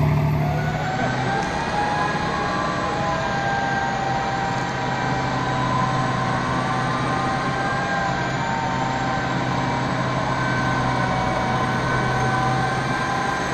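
Large mining dump truck running steadily, a deep engine hum under high whining tones that slowly rise and fall in pitch.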